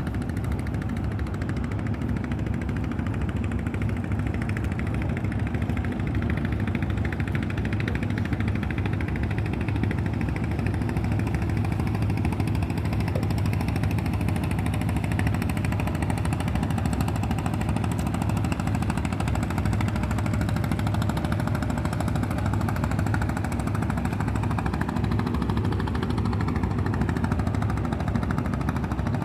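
Boat engine running steadily: a low, rapid chugging drone that holds even throughout.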